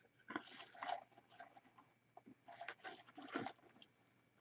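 Faint rustling and light clicks of artificial evergreen branches and a plastic peppermint-swirl pick being handled and repositioned in a wreath, in a few short bursts.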